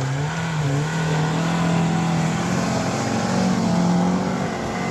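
Suzuki Escudo's engine revving hard and held at high revs as it climbs a snowy slope, with a short dip in pitch about half a second in before the note steadies.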